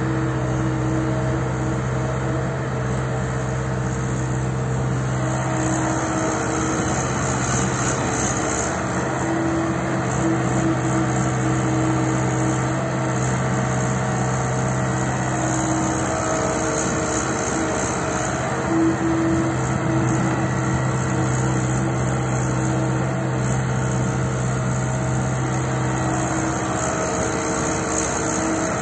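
JCB machine's diesel engine running steadily at work, with a higher tone that swells and fades several times.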